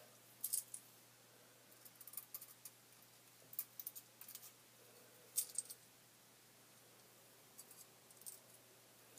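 Pliers clicking and snipping against a metal fishing hook in scattered groups of short, sharp metal clicks, as the hook is gripped and cut at.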